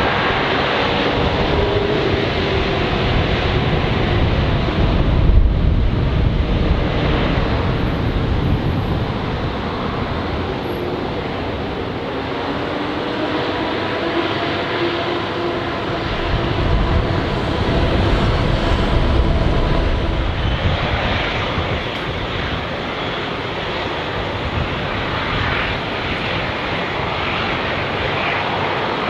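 Airbus A350-900's Rolls-Royce Trent XWB jet engines running: a steady rumble and hiss with a faint low drone underneath.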